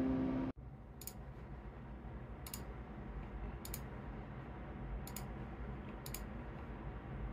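Computer mouse button clicking: five single clicks spaced one to one and a half seconds apart, over a faint low room hum.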